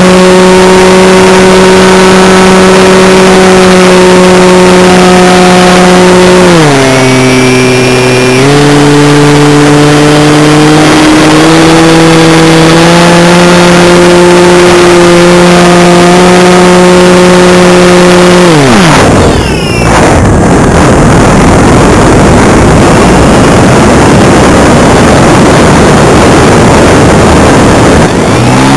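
RC model biplane's motor and propeller, heard from a camera on the aircraft. It runs as a steady high drone at full power, dips in pitch about six seconds in and comes back up. It is throttled right back about two-thirds of the way through, leaving mostly the rush of wind over the airframe for about ten seconds, and power comes back on at the very end.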